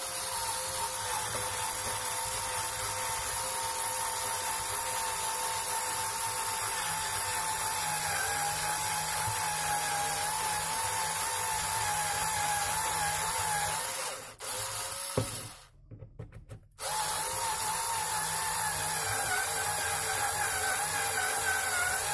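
Handheld electric drill running steadily with a motor whine while drilling up into a melamine-covered particle board shelf. It stops about 14 seconds in, gives a short burst, stops again, then starts up and runs on.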